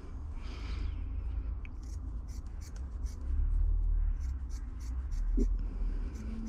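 Scissors snipping through anthracite four-way stretch carpet, trimming it along the edge of a ply panel, in quick cuts about three a second that begin about two seconds in.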